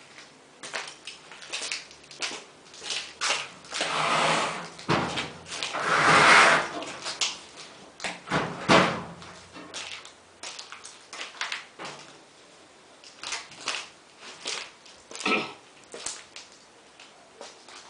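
Handling noises: irregular knocks, clicks and rattles, with longer scraping or rubbing sounds about four and six seconds in.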